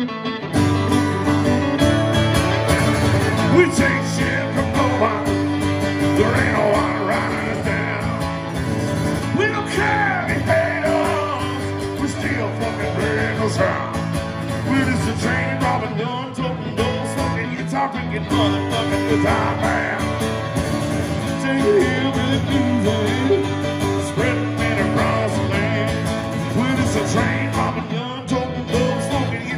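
Two acoustic guitars strummed and picked together in a live country-rock song, with a man singing over them.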